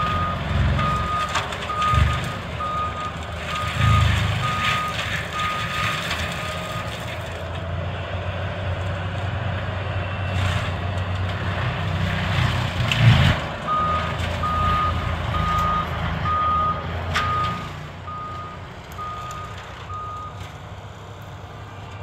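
Tracked forestry mulcher running under load, its backup alarm beeping steadily at about two beeps a second over the engine's steady drone, with a few heavy crunching thumps. The beeping stops a third of the way in, starts again about halfway, and the machine sound fades near the end.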